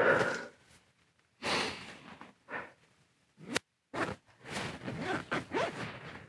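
Rustling and shuffling of the Berghaus Cheviot 2 tent's fabric and the person's clothing as he shifts about sitting inside it. The sound comes in several short bursts, the loudest right at the start.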